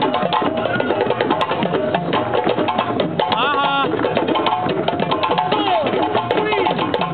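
A group of people drumming together on hand drums, a dense unsynchronised clatter of many quick beats, with voices shouting and a high whoop about halfway through.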